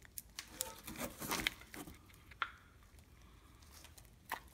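Gloved hands forcing a greased brake caliper guide pin through a new rubber boot: faint rubbing and squishing of rubber, with a few sharp clicks, busiest about a second in.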